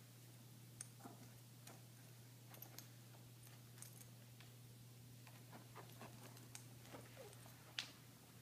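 Faint, scattered scratching and clicking of a small dog rubbing its face and pawing at a rug, itching from an allergy, with one sharper click near the end, over a steady low hum.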